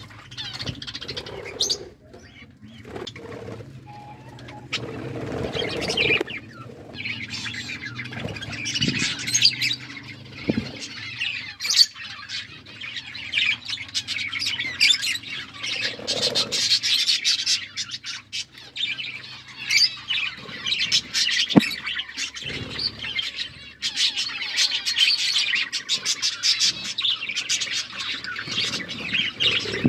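Budgerigars chattering and warbling: a dense stream of quick high chirps that thickens after the first few seconds and runs on almost without a break.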